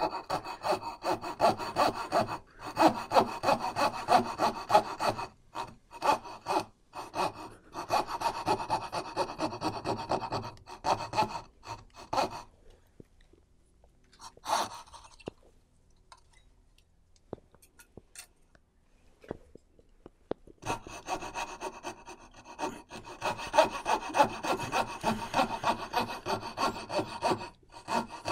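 Knew Concepts Mk4 fret saw cutting dovetails in a wooden board, the blade rasping through the wood in quick, even back-and-forth strokes. The sawing stops for several seconds in the middle, with a brief rustle, then starts again.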